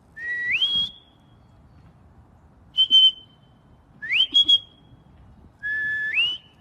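A person whistling to call an animal: four whistles, each under a second. Most slide from a lower note up to a higher one; the last holds the low note before rising.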